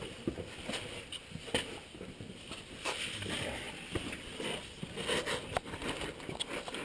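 Scattered light knocks and scuffs of hikers moving and scrambling over sandstone.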